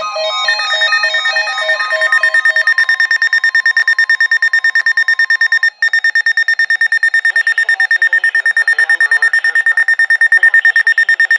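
Weather alert radios going off for an EAS alert: a rapid, high-pitched electronic alarm beeping. For the first half a steady broadcast warning tone sounds beneath it, then cuts off about six seconds in with a brief break in all sound. After that the beeping carries on alone.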